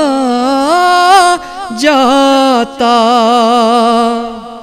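A male voice singing a naat in Urdu: one voice with long held, ornamented notes, sung on the closing word 'jata' of the line, fading out near the end.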